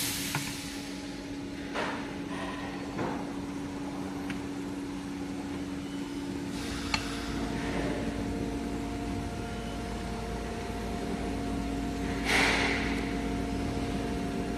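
Pull test of an ultrasonically welded wire splice on a hand-operated force-gauge test stand: a steady mechanical hum with a few light clicks, a deeper hum joining about halfway, and a short swish near the end. No snap: the splice holds past 500 N.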